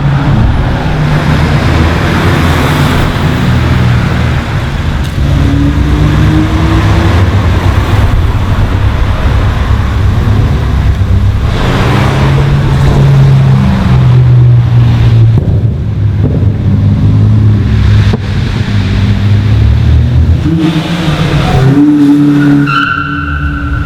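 Loud tuned and modified cars driving past one after another, engines revving and accelerating, the pitch rising and falling as each car comes and goes. A brief steady tone sounds near the end.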